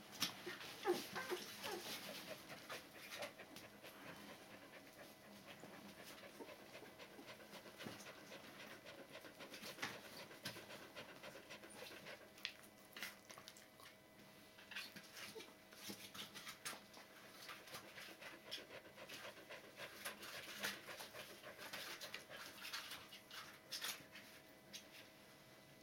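Border Collie dam panting softly while her two-week-old puppies nurse, with faint clicks of suckling throughout and a few brief puppy squeaks about a second in.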